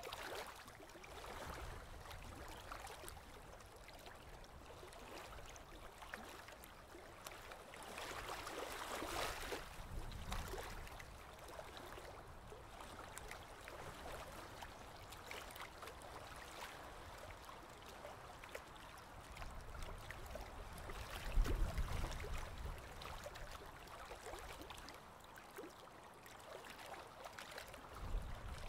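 Faint running water, an uneven trickling noise with many small clicks, swelling louder about eight seconds in and again near twenty-one seconds.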